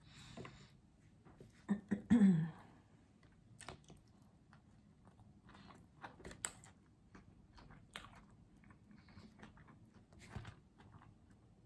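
Close-miked chewing of pizza, with many short wet mouth clicks and smacks. About two seconds in comes a brief voiced sound that falls in pitch, louder than the chewing.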